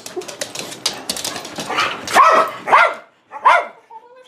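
A dog barks three times in quick succession, about two-thirds of a second apart, eager to go for a walk. Before the barks there is shuffling with rapid clicks and rattles.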